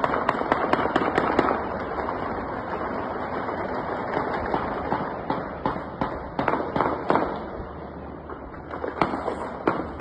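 Rapid series of sharp bangs echoing, a dense run of about ten in the first second and a half, then scattered bangs in clusters past the middle and again near the end.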